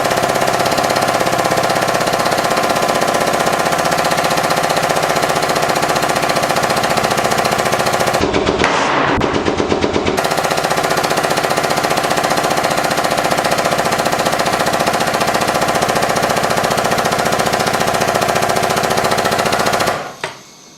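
Hydraulic press motor and pump running steadily with a fast, even chatter as the ram bears down on a CO2 cartridge. There is a short louder burst about eight seconds in, and the machine cuts off sharply near the end.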